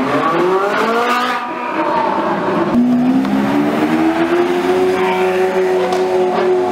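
Sports car engine accelerating hard: the pitch climbs quickly, drops with an upshift about a second and a half in, then climbs slowly again in the next gear.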